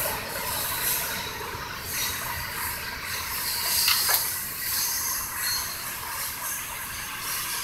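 A loaded CSX coal train receding, its steel wheels on the rails making a steady hiss, with a short falling squeal about four seconds in.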